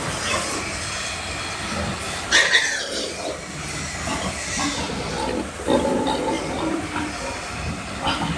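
Piglets squealing and grunting over a steady hiss, with one loud, sharp squeal about two and a half seconds in.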